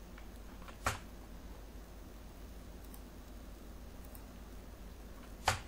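Two sharp computer mouse clicks, one about a second in and one near the end, with a few fainter clicks between, over a steady low background hum.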